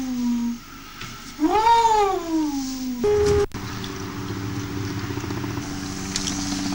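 Wolf howls, the 'children of the night': one howl tails off, then a second long howl rises and falls in pitch. About three seconds in it cuts off, and after a sharp click a steady low hum follows.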